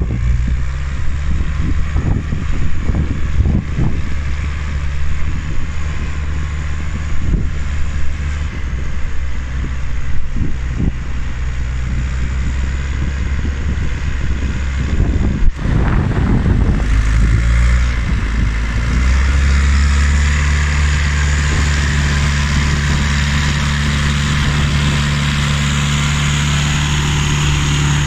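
Timberjack forwarder's diesel engine running as the machine crawls slowly through snow on big tyres, with scattered knocks and crackles over the first half. From about two-thirds of the way in, the engine is heard close up, running steady and louder.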